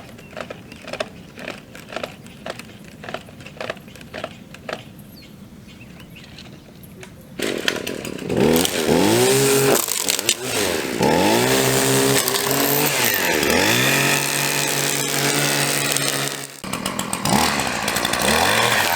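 Regular clicking about twice a second, then a small two-stroke string trimmer engine cuts in suddenly and revs up and down over and over as it trims. It drops out for a moment near the end and comes back.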